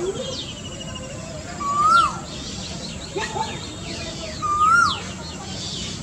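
Male Asian koel calling twice, about two and a half seconds apart. Each call is a loud note that rises and then falls away sharply, with faint chirps of smaller birds between the calls.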